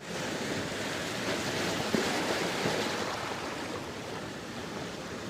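Rough sea surf washing in steadily, with wind blowing.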